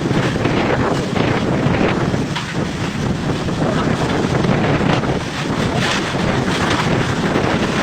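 Typhoon wind buffeting the microphone: a loud, steady rushing roar that swells and eases in gusts.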